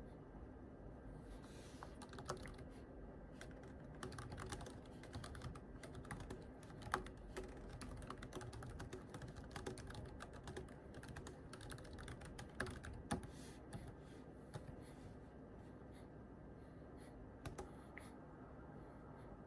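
Computer keyboard being typed on quietly: irregular key clicks that start about two seconds in and stop near the end, with a few harder keystrokes among them.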